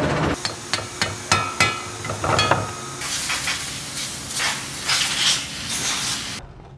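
Freshly cast aluminum pieces being cleaned over a steel grate. First comes a series of about eight sharp, ringing metal knocks, then a run of rasping scrapes that stops abruptly near the end.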